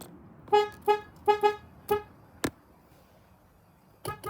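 Car horn tapped in five short honks within about a second and a half, each on one steady pitch, then a sharp click. Another brief honk sounds near the end.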